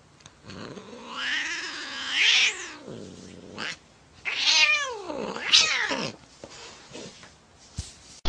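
An angry cat yowling: a long wavering yowl, then a second drawn-out cry that slides down in pitch about four seconds in, with shorter cries in between and after.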